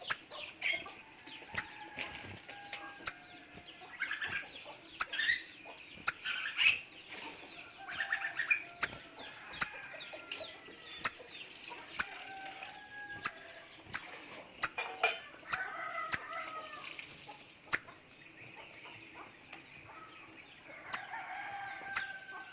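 Crimson sunbird calling: sharp, very short chip notes about once a second, mixed with high, thin, rapid trills, over other lower bird calls.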